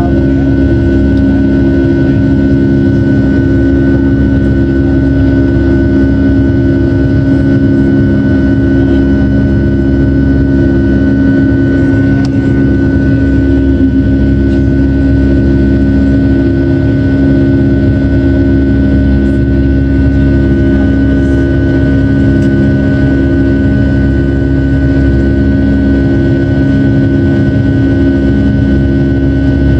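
Jet airliner cabin noise from a window seat in flight: the engines and airflow make a loud, steady drone, with a constant low hum and a thin high whine over it.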